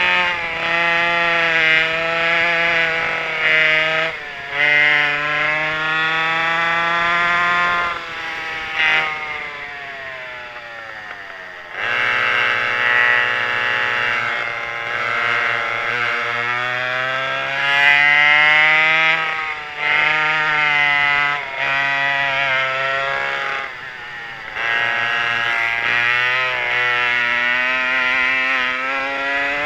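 Twin McCulloch 5.3 cubic-inch two-stroke converted chainsaw engines driving a vintage rear-engine race kart at speed, the pitch climbing as they wind up and dropping each time the throttle comes off for a corner. About eight seconds in they fall away in a long falling coast, then pick up sharply again about twelve seconds in.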